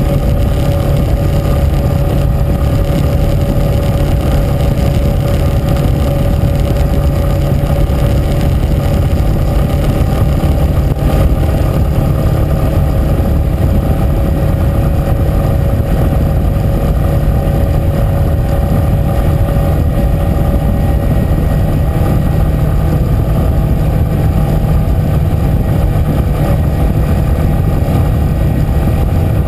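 Yamaha Fazer 250's single-cylinder four-stroke engine running steadily at cruising speed, heard from the rider's position with heavy wind rush from riding at about 70 km/h.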